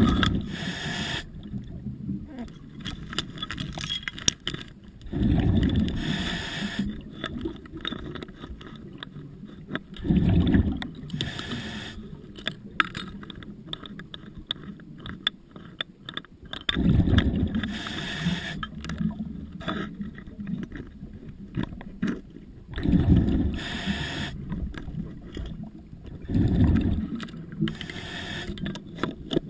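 Scuba diver's exhaled bubbles rushing from the regulator in a burst every five to six seconds, heard underwater, with small clicks and knocks between the breaths.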